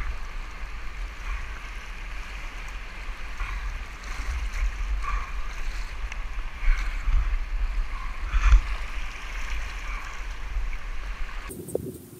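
Fast whitewater rushing past a kayak close to the water, with a deep rumble and a splash every second or two, the loudest about two-thirds of the way through. The sound changes abruptly near the end.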